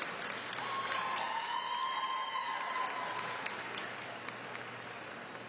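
Spectators clapping, the claps thinning and fading away toward the end, with one long high call held over the applause for about three seconds.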